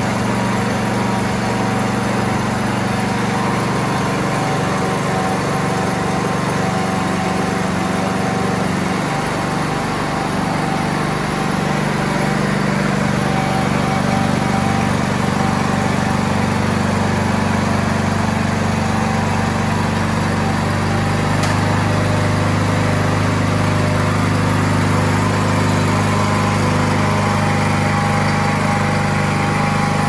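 Propane engine of a 30-inch planetary concrete floor grinder running steadily. Its low hum grows stronger about ten seconds in.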